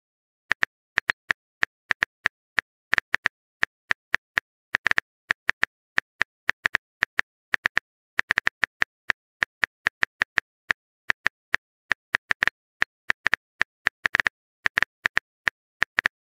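Phone keyboard typing sound effect: a long, quick run of short, crisp taps at uneven spacing, about four a second, starting about half a second in.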